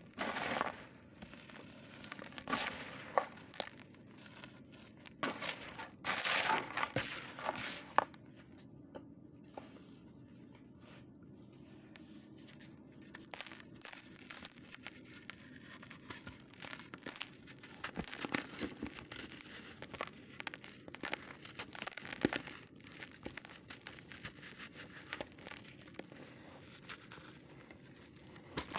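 Hands crumbling and squeezing lumps of dry, powdery dirt and sifting the powder through the fingers, a crunchy crackling in uneven bursts. The crunching is heaviest in the first several seconds, eases off for a few seconds, then goes on more lightly.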